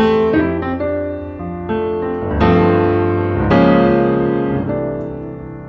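Slow piano music: chords struck every second or so, each ringing out and fading.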